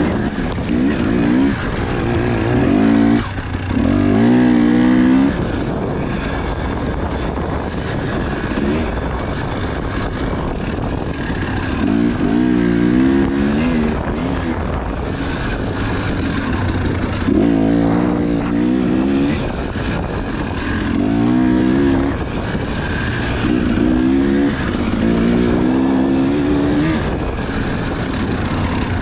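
Husqvarna dirt bike engine heard from on board, revving up in repeated surges and dropping back between them as the throttle is worked, over steady engine and wind noise.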